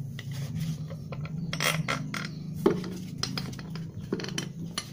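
Small metal clinks and rubbing scrapes, several separate knocks, as a block is pushed and worked by hand onto a metal shaft and flange, over a steady low hum.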